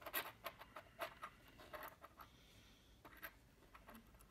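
Faint scratching and small clicks of fingers handling a small metal keychain charm against a tabletop, coming in scattered short touches, most of them in the first couple of seconds and a few more about three seconds in.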